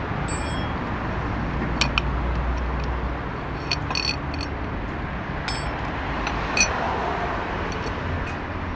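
Scattered sharp metallic clicks and clinks of an Allen key working the bolts of a Yamaha V Star 650's oil filter cover as the cover comes off, over a steady low rumble of street traffic.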